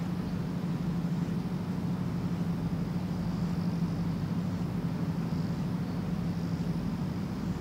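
A steady low drone over an even hiss.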